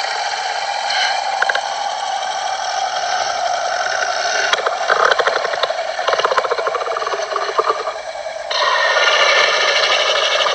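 Designed creature sound effect: a continuous harsh, buzzing rasp with fast rattling pulses through the middle, changing abruptly about eight and a half seconds in.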